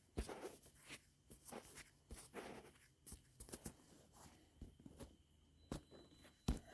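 Faint, irregular clicks and light handling noises, a few short knocks spread across a few seconds.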